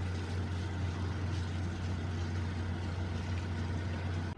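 Ship's engine running with a steady low hum and a hiss over it, which cuts off suddenly near the end.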